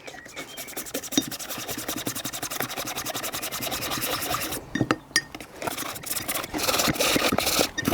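Toothbrush scrubbing a small chainsaw air filter wet with white spirit: rapid back-and-forth brushing strokes, with a short pause about halfway through.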